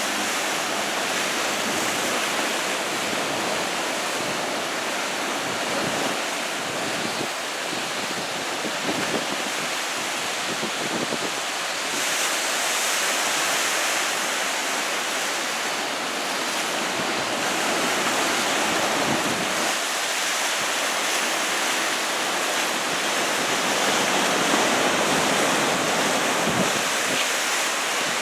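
Ocean surf from a large typhoon swell breaking continuously into a steady rushing wash, rising and falling a little as sets come through, with wind buffeting the microphone.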